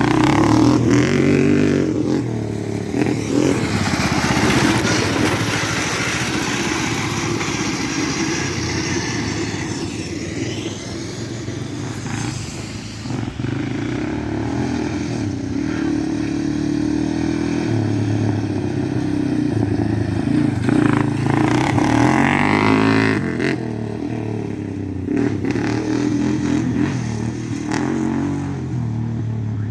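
Small gasoline engine running hard under load, its pitch rising and falling again and again as the machine speeds up and slows down.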